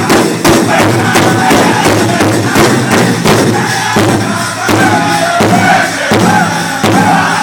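A powwow drum group beating a large powwow drum in a steady, fast beat, about two to three strokes a second. The men's high-pitched singing comes in over the drum about halfway through.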